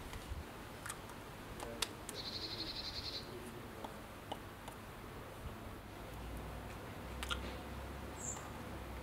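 Quiet garden ambience with a short, high, buzzy trill lasting about a second, starting around two seconds in. A few faint clicks come before it, and a soft low rumble rises near the end.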